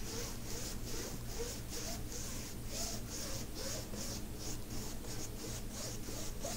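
Foam brush swishing back and forth over the faceted drills of a diamond painting, spreading sealant: a scratchy rubbing in quick, even strokes, a few a second.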